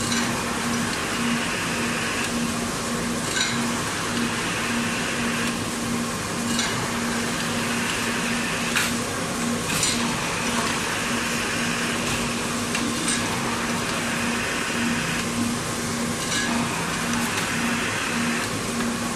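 Automatic cotton bud packing machine running: a steady pulsing hum under a hiss, with sharp mechanical clicks every few seconds.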